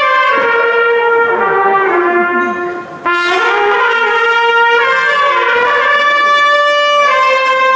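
Several trumpets playing together in held, chorded notes that move in steps from one chord to the next, with a short break about three seconds in before the next phrase begins.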